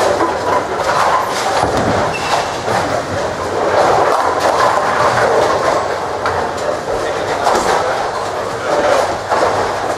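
Ten-pin bowling alley din: bowling balls rolling down the wooden lanes in a steady rumble, with scattered clatters of balls and pins.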